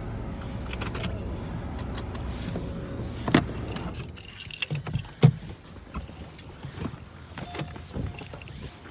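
Steady rumble of a car's cabin that drops away about four seconds in, with keys jangling and a run of clicks and knocks as the occupants get out of the parked car. The loudest knock comes about five seconds in.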